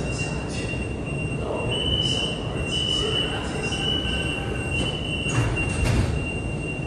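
Metro train door-closing warning: a steady high tone that steps slightly up in pitch about once a second while the carriage doors slide shut, over the low hum of the stopped train. The doors meet with a couple of knocks about five and a half to six seconds in.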